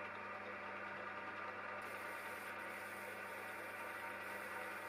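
Myford Super 7B lathe running steadily while facing a mild steel gear blank: a constant motor hum under an even mechanical whir, with a faint higher hiss joining about two seconds in.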